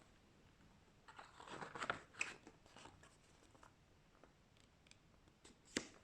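Faint handling of a photobook's thick paper pages being turned: a papery rustle about a second in, a few light ticks, and one sharp click near the end.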